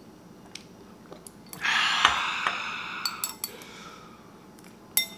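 A man lets out a long, loud, breathy 'haaah' about a second and a half in, panting against the burn of spicy ramen in his mouth. A few sharp clinks of a metal spoon against a ceramic bowl and of a glass on a stone countertop come before and after it.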